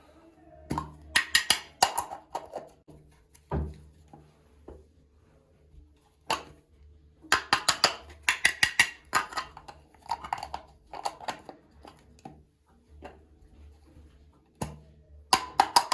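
Small plastic toy kitchen pieces and packaging being handled, in bursts of quick clicks and clacks with short pauses between.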